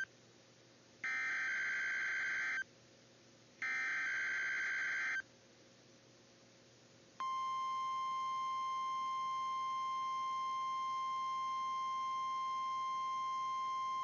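NOAA Weather Radio EAS test signal: the last two bursts of the SAME digital header, warbling data bursts about a second and a half long with a second's gap between them, then about seven seconds in the steady 1050 Hz weather radio warning alarm tone begins and holds. Together they mark a Required Weekly Test.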